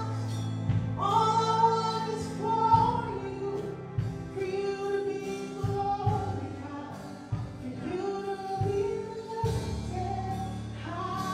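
Gospel worship song performed live: a woman singing lead with backing singers, over sustained low accompaniment notes that change every second or two.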